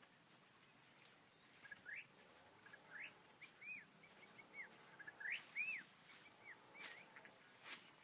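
White-rumped shama giving a loose string of short, clear whistled notes, some rising and some arched, starting about two seconds in. A couple of faint clicks come near the end.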